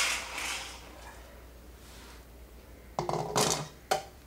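Dry roasted fried gram poured from a pan into a stainless steel bowl: a loud rattling rush of grains on the steel that fades away within the first second. A few brief clatters follow about three to four seconds in.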